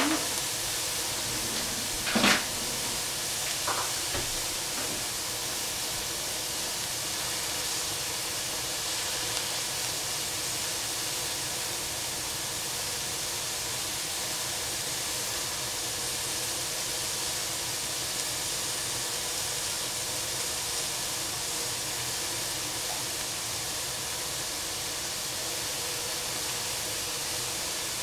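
Food sizzling and steaming in a frying pan on the stove: a steady hiss, with one short clatter about two seconds in and a smaller knock shortly after.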